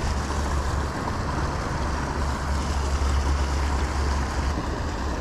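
Wind buffeting the microphone outdoors: a steady low rumble with a hiss over it, swelling and easing in gusts.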